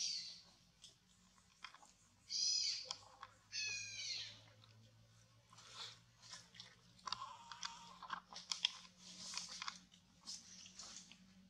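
An infant long-tailed macaque gives two short, high-pitched cries a couple of seconds in. Then comes a run of crunching and rustling of dry leaves as the mother walks over the leaf litter.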